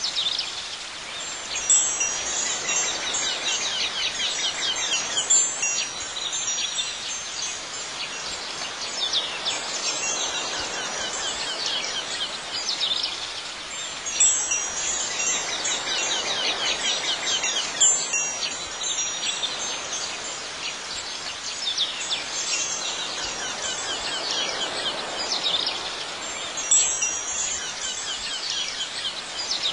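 Wind chimes ringing continuously, with a louder cluster of strikes every several seconds.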